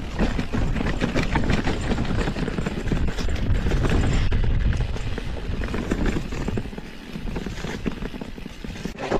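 Mountain bike rattling and clattering down a rocky trail, its tyres knocking over stones, with a heavy low rumble; it eases off after about seven seconds.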